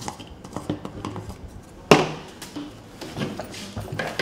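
Small clicks and knocks of a coffee jar, cups and a flask being handled on a counter, with one sharp knock about two seconds in.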